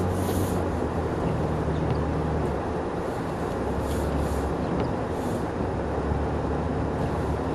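Car engine running at low speed with tyres rolling through deep snow, heard inside the cabin; the engine note drops lower about two and a half seconds in.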